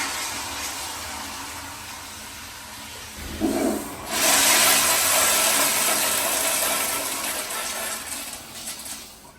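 Restroom toilet flushing: the rush of one flush dies away, there is a short low thump about three seconds in, and then a second loud rush of water starts about a second later and fades out near the end.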